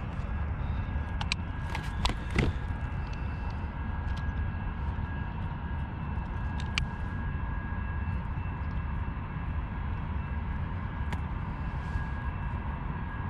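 A steady low rumble with a faint steady whine above it, broken by a few sharp clicks and ticks of handling as a redfish is unhooked with a plastic lip gripper, most of them bunched a second or two in.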